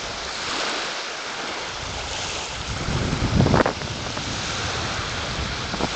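Small waves lapping and washing onto a sandy beach, with wind rumbling on the microphone. A louder gust comes about three seconds in.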